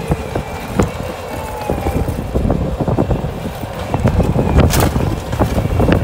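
Bobcat compact track loader working: its engine running under load as it pushes dirt, tyres and debris with the bucket, with irregular knocking and clattering from the tracks and rubble and one sharp crack near the end.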